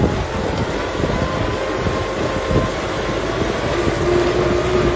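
Kubota M6040 tractor's diesel engine running steadily under load, pulling a disc plough through dry soil.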